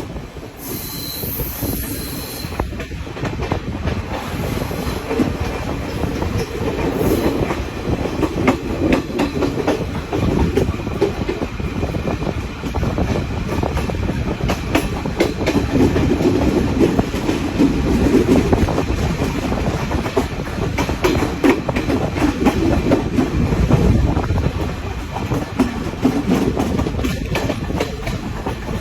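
Passenger train running along the track: a steady rumble with the wheels clicking over the rail joints.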